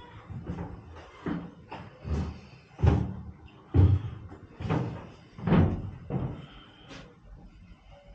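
A series of dull thumps, roughly one a second, the loudest in the middle stretch.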